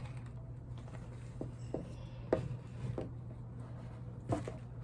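Scattered, irregular clicks and scratches of a taped cardboard package being picked and pried open by hand without a knife, over a steady low hum.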